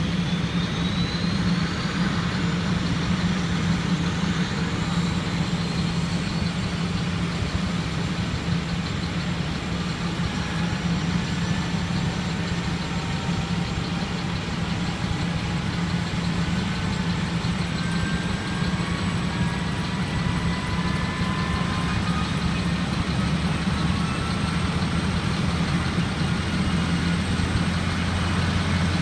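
Ambulance helicopter running on the ground before takeoff: a steady engine drone with a high whine that rises over the first few seconds and then holds. A deeper low drone comes in about 25 seconds in.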